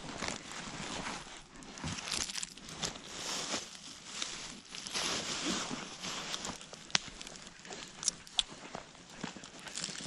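Rustling and crinkling from hands rummaging in a fabric backpack and handling food wrappers, in uneven swells, with a few sharp clicks near the end.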